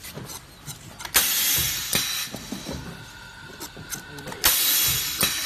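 Bottle heat-transfer printing machine cycling: a sharp burst of air hiss about a second in and another near the end, each about a second long and fading, with a few mechanical clicks between.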